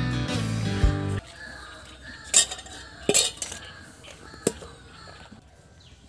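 Guitar music that cuts off about a second in, then a few sharp metallic clinks and knocks of steel bowls, plates and an iron kadai being handled, the loudest about two seconds in.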